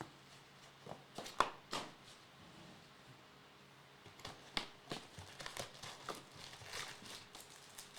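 Trading card packs and cards being handled: foil wrappers crinkling and cards rustling in short, irregular bursts, with a few sharper clicks.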